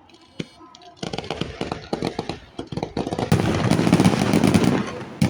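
Fireworks going off: a single crack, then about a second in a dense, rapid run of bangs and crackles that grows louder about three seconds in.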